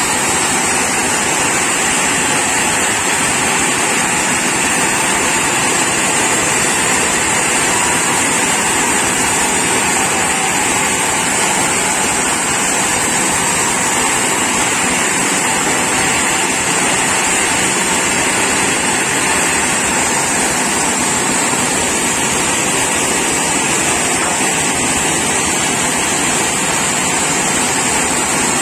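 Sawmill saw running loud and steady, with no change throughout.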